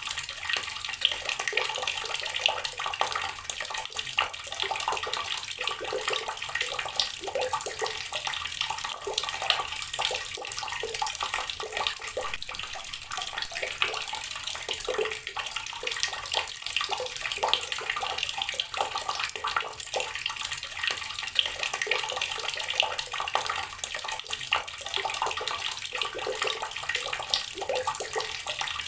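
Water pouring steadily from a tap and splashing onto rocks, a continuous bright splashing with many small irregular spatters.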